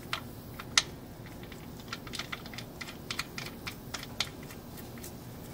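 Irregular sharp clicks, two louder single ones in the first second and then a quick scatter of them, as the oil drain plug of a 2009 Honda Civic is screwed back into the oil pan by hand.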